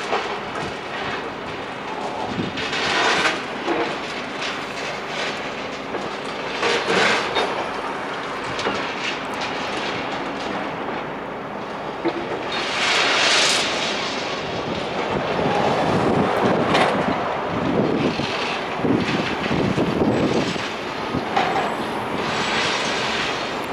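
Demolition machinery working at a building: a continuous rumble with rattling and scraping of rubble and metal, and heavier crashes from about the middle of the stretch onward.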